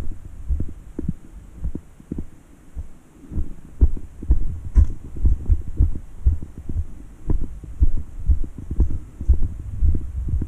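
Footsteps of a person walking a dirt trail, heard as low thuds over a low rumble. They are sparse at first, then come at about two a second from the middle on.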